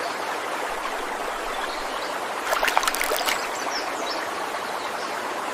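Steady rushing water, like a flowing stream. A short flurry of sharp clicks and splashes comes about two and a half seconds in.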